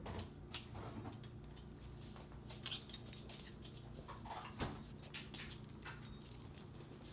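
A five-month-old puppy coughing and hacking in several short bursts among small clicks, the loudest about three seconds in. The owner suspects a collapsed trachea.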